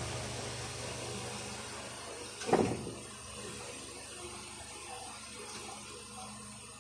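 Parts of a disassembled Daisy Power Line 1200 pistol being handled, with one short clatter of the plastic frame and trigger parts about two and a half seconds in, over a steady background hum.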